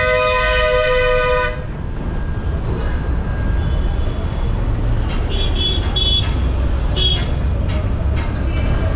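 Bus horn blaring right alongside, a steady two-note blast that stops about one and a half seconds in. Under it runs the engine rumble of dense city traffic, with a few short, high beeps from other vehicles later on.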